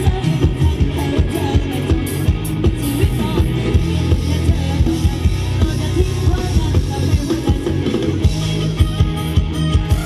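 Live band music for ramwong dancing, loud, with heavy bass and a steady drum beat.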